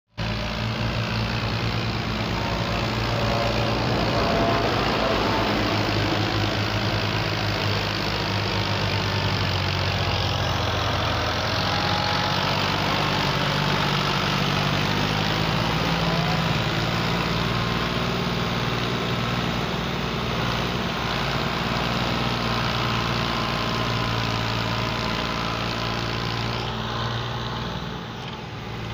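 New Holland Ghazi tractor's diesel engine running steadily under heavy load as it hauls a loaded sugarcane trolley, its note shifting a little in pitch and dropping in level near the end.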